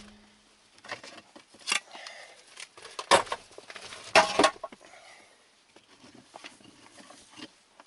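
Digging through soil and old scrap iron: a few short scrapes and knocks, the loudest about four seconds in, with small clinks between.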